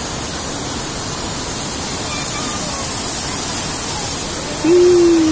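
Steady rush of water pouring over and between rocks at a waterfall. Near the end a voice calls out once, a drawn-out sound falling in pitch and louder than the water.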